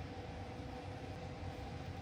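Steady mechanical hum: an even noise with a low rumble and two faint steady tones, unchanging throughout.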